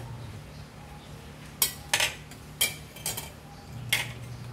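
Metal ladle clinking against a large metal pan while stirring soup, several sharp clinks in the second half, the last as the ladle is set down.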